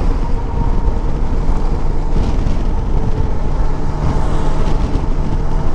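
Bajaj Dominar 400 motorcycle's single-cylinder engine running steadily on the move, mixed with a steady rush of wind and road noise.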